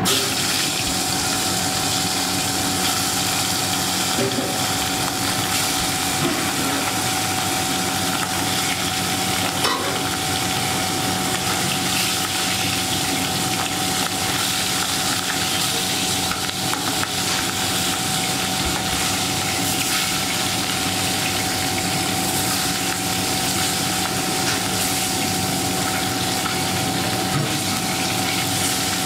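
Pieces of katla carp sizzling in hot oil in a kadai. The sizzle starts suddenly as the fish goes in and then runs steadily as the pieces fry.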